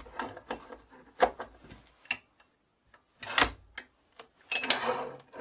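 Clicks and knocks as a car jack set under a drill press table is let down to lower the table, then two short scraping rubs about three and a half and about five seconds in.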